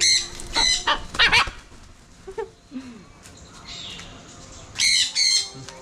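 Parrots squawking in short harsh calls: three in quick succession at the start and two more about five seconds in.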